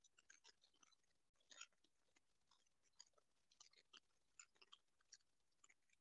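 Near silence with faint, irregular clicks and crackles, several a second.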